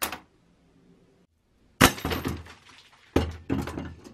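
Steel bear trap being sprung: a sharp metallic snap about two seconds in with a clattering rattle, then several more metal clanks a second later.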